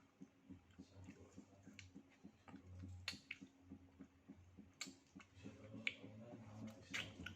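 Faint wet mouth clicks and smacks of someone chewing durian, with a few sharper clicks about three, five, six and seven seconds in.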